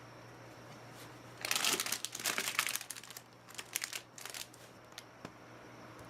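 Plastic packaging crinkling as it is handled, in two bursts: a longer one about a second and a half in, then a shorter one near four seconds.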